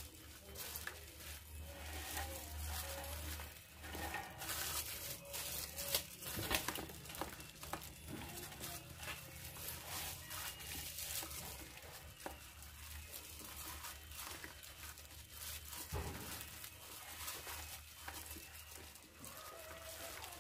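Whisk stirring thick, wet cake batter in a large aluminium bowl: irregular scrapes, clicks and soft wet slaps of the batter, over a low steady hum.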